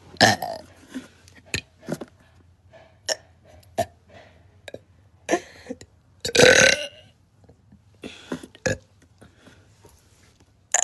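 A person burping several times on purpose, the longest and loudest belch about six seconds in, with short sharp clicks in between.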